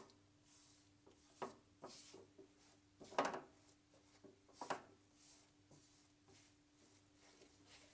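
Spatula scraping and pushing a thick, crumbly mix of gram flour and semolina in ghee around a non-stick wok, in a few irregular strokes, the loudest about three seconds in. A faint steady hum runs underneath.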